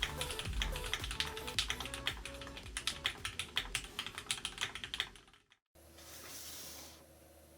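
Fast typing on a Keychron Q6 mechanical keyboard with Gateron Red linear switches: a rapid run of key clacks over background music. It stops suddenly about five seconds in, leaving faint hiss.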